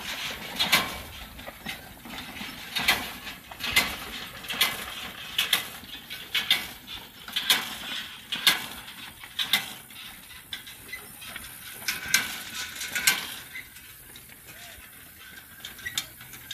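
Horse-drawn, ground-driven hay rake rolling over a field, its gears and tines rattling and clanking with irregular sharp metallic clicks and knocks. The clatter grows quieter near the end as it moves away.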